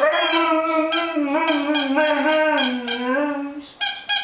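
Husky's long, wavering howl-like 'talking', one drawn-out call of about three and a half seconds, followed by a short second note near the end.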